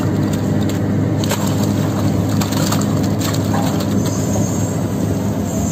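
Sany SR150C hydraulic piling rig's diesel engine running steadily as its core barrel lifts off a column of mud and rock core. Scattered cracks and crunches come from the mud breaking away.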